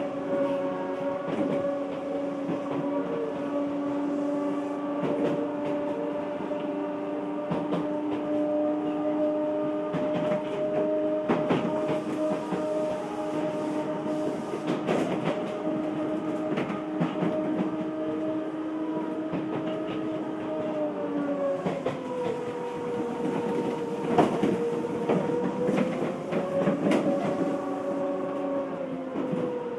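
Inside a Hakone Tozan Railway Odakyu 1000 series electric train car running between stations: a steady whine from the drive, with wheels clacking over rail joints. The whine drops in pitch about two-thirds of the way through.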